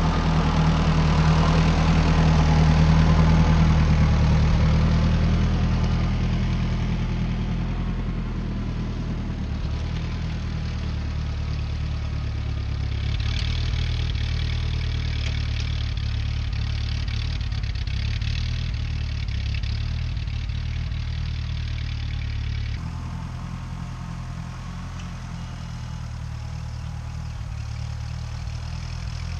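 Ford 8N tractor's four-cylinder flathead petrol engine running while pulling a plow, its carburettor still set for the fall. The engine sound drops abruptly about 23 seconds in and runs on quieter.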